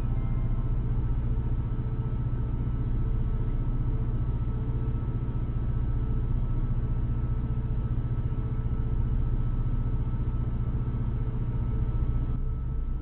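Steady low engine drone of a semi-truck running at low speed, heard from inside its cab, with a faint steady whine above it; the drone drops a little near the end.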